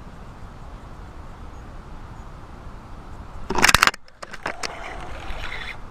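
Steady hum of distant traffic, broken about three and a half seconds in by a sudden loud swish as the fishing rod is swept back in a hookset that misses the fish, followed by a run of clicks and scraping from the rod and reel.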